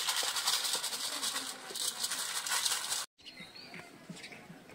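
Heavy rain falling in a dense, steady hiss of drops, which cuts off abruptly about three seconds in. Afterwards it is much quieter, with a few faint bird chirps.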